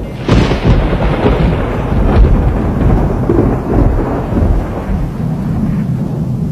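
Sutlej floodwater rushing and churning along a village street, a loud steady rush of water with a heavy rumble underneath.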